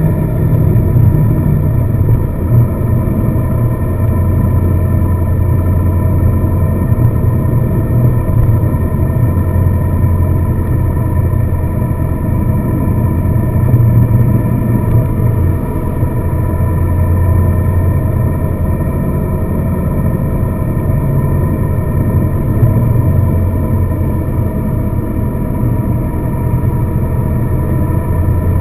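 A car's engine and road noise as it drives along: a steady low rumble that swells and eases a little.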